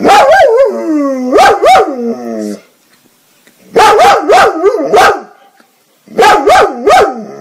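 German Shepherd dog vocalising in three bouts, a few seconds apart. Each bout is sharp barks that run into drawn-out, wavering howl-like notes.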